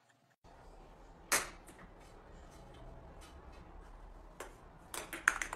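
Faint room noise with a few soft taps and clicks: one sharper tap about a second in and a quick run of clicks near the end.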